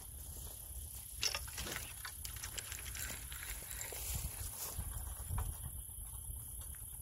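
Night-time outdoor ambience: a steady high-pitched insect drone over a constant low rumble, with scattered rustles and clicks from about one to five seconds in.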